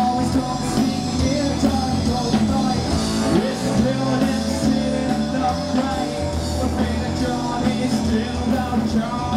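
Rock band playing on an open-air stage, with electric and acoustic guitars, drums and a singing voice.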